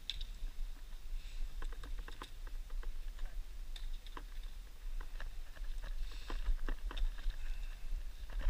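Irregular clicks and light crunches of trekking-pole tips and boots striking and shifting loose scree and rock on a steep descent.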